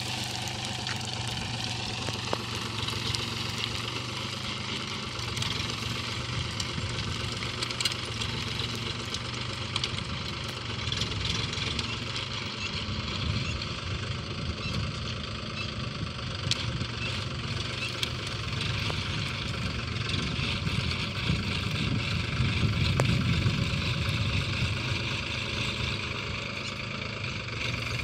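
36 hp diesel tractor engine running steadily as the tractor drives across a field pulling an implement, growing a little louder near the end.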